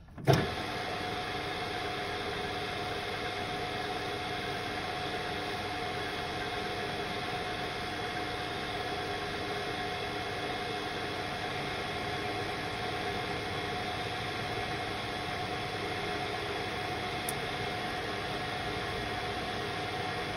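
AL-1324 centre lathe starting with a knock about a third of a second in, then running steadily with a hum and a steady whine, during a 1 mm pitch thread-cutting pass.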